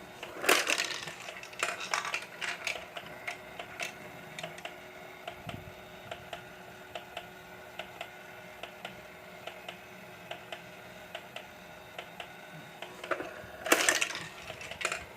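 Battery-powered Crane Ball toy game running: a steady motor hum with regular plastic clicking from its mechanism, and small plastic balls clattering, loudest about half a second in and again near the end.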